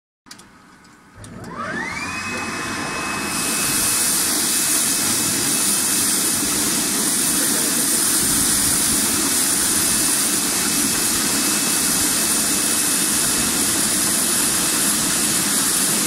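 Stainless-steel vegetable washing machine switched on: a few clicks, then its electric motor whines up to a steady high pitch. About three seconds in, a loud steady hiss of water jetting from the spray nozzles and churning in the bubbling wash tank joins it.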